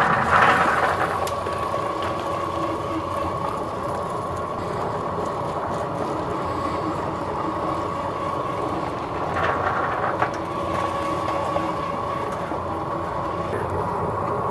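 Electric grinder motor running steadily with a constant whine, grinding soaked chickpeas with garlic, parsley and cilantro. There is a louder noisy surge at the start and another briefly about ten seconds in.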